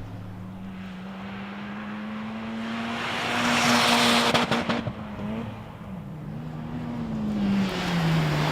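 Toyota Celica GT4's turbocharged 2.0-litre four-cylinder rally engine pulling hard, its note climbing steadily to its loudest about four seconds in. After that the pitch drops and rises several times, as in quick gear changes, and it falls away near the end.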